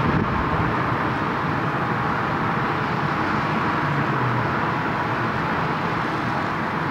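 Steady, even wash of distant city traffic noise.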